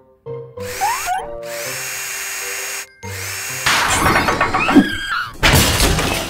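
Cartoon power-tool sound effect, a drill whirring up and running steadily for about two seconds. Busier, clattering tool noise follows, with a short loud burst near the end, over background music.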